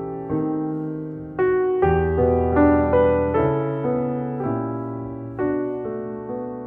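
Background piano music: slow, gentle notes struck one after another, each fading away.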